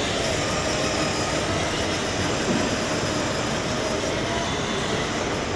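Battery-powered ride-on toy car driving: its small electric motor running and its hard plastic wheels rolling over a tiled floor, a steady rumble.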